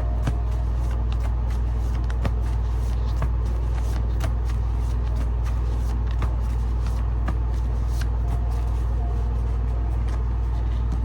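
Light clicks and taps of tarot cards being handled, scattered irregularly, over a steady low hum.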